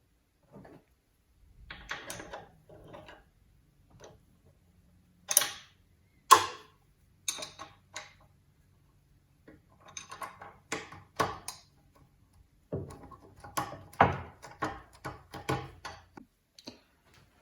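Irregular clicks, clinks and knocks of a mini lathe's change gears being taken off and fitted by hand, among them 3D-printed plastic gears. The sharpest knock comes about six seconds in, with a quick run of clicks near the end.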